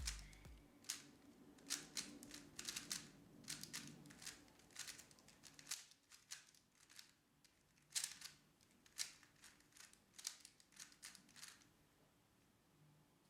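Faint, irregular sharp clicks and taps, one or two a second, as the music fades out at the start; they stop about a second and a half before the end.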